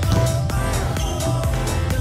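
Background dance music with a steady beat and heavy bass.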